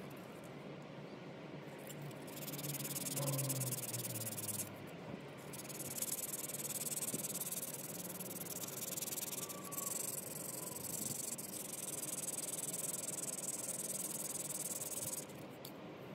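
Sandpaper rubbed rapidly back and forth by hand on an aluminium drill housing, a high scratchy rasp. It comes in two spells: a short one about two seconds in, then a long one from about five seconds in until shortly before the end.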